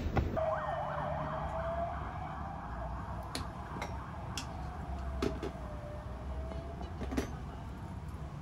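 A siren wailing in the distance, its pitch quickly sweeping up and down at first, then slowly rising and falling, over low street rumble. A few sharp clinks sound in the second half.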